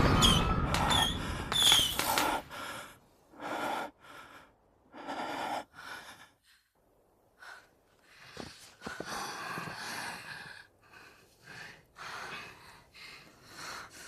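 People panting and gasping for breath in short, uneven breaths, with the tail of a louder crash fading out over the first two seconds.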